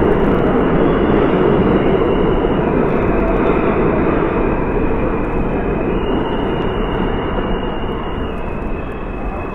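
Subway train running into a station alongside the platform: a loud, steady rumble of wheels on rail that slowly eases as the train slows. A faint high whine runs over it and steps up in pitch about six seconds in.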